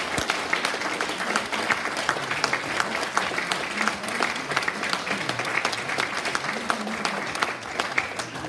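Audience applauding: many hands clapping in a dense, steady patter that begins to thin out at the very end.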